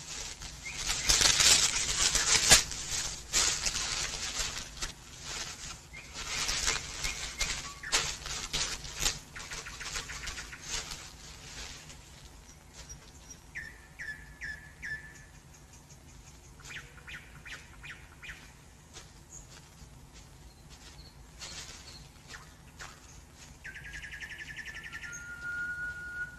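Leaves and twigs rustling and snapping in jungle undergrowth, loud and busy for the first dozen seconds. It then dies down to faint forest ambience with birds chirping and trilling in short bursts, and a thin rising whistle near the end.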